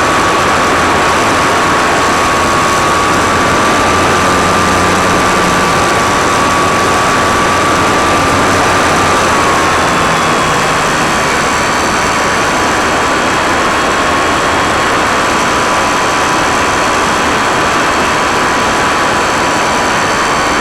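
Electric motor and propeller of an RC airplane running steadily in flight, a high whine over heavy wind rush on the onboard camera's microphone. The whine drops slightly in pitch about halfway through as the throttle eases.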